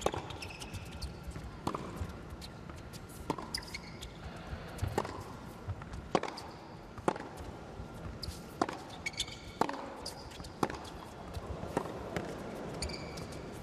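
Tennis rally on a hard court: sharp racket strikes on the ball and ball bounces, about one a second, with a few short shoe squeaks late on.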